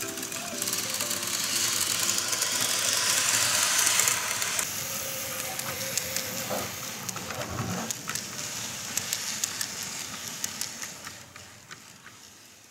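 N-gauge model of a Keikyu 600 series train running on its track, a hiss of wheels and motor with many small clicks. It grows louder to a peak about four seconds in, then fades away as the train moves off.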